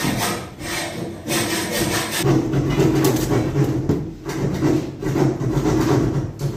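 Pencil scraping across a fibre-cement wall board as cutting lines are drawn along the metal studs. From about two seconds in, a steady low machine hum runs underneath.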